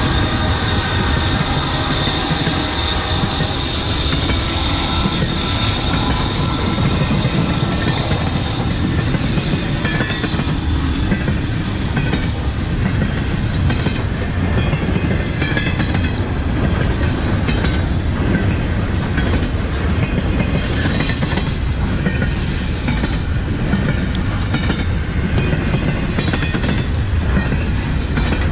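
Intermodal freight train rolling past, a steady loud rumble with wheel clatter over the rails. A high steady tone in the first several seconds fades out.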